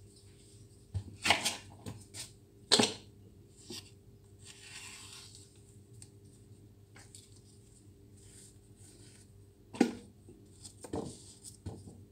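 A banana being cut and peeled with a small knife: a few sharp clicks and taps of knife and peel, and a soft tearing rustle about four to five seconds in. A faint steady hum runs underneath.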